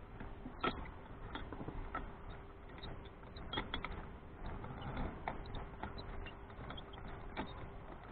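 Faint, irregular small clicks and creaks of fishing tackle and the boat being handled, over a low steady hum.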